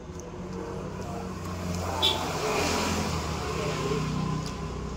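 A motor vehicle passes close by, its engine and road noise swelling about two seconds in and fading toward the end. A brief sharp click comes about two seconds in.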